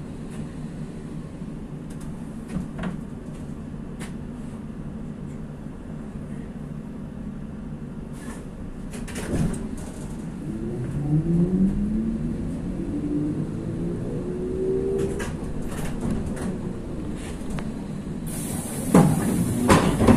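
Interior ride noise of a ZiU-682G trolleybus: a steady rumble with occasional knocks, and a whine from the electric drive that rises in pitch for several seconds mid-way. Near the end, as the trolleybus comes to a stop, a high hiss of air and a few loud clunks follow, like the doors working.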